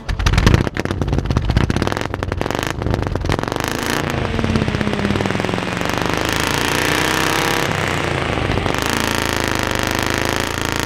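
Panhard air-cooled flat-twin engine pulling away with a rapid, rattly beat, then running at higher revs as the car gathers speed, its pitch rising and falling.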